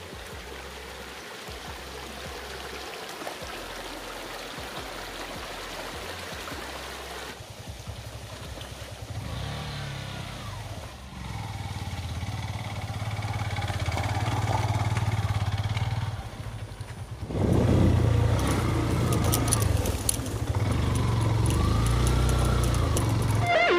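Motorcycle engine running, coming in about a third of the way through and growing louder, with a brief dip and a louder stretch near the end. An even rushing noise fills the first part.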